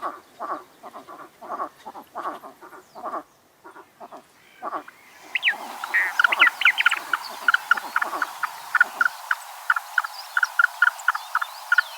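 Frogs calling. First comes a run of low croaks, two or three a second. From about five seconds in, a different call takes over: quicker, higher pulsed croaks about four a second, with faint high chirps above them.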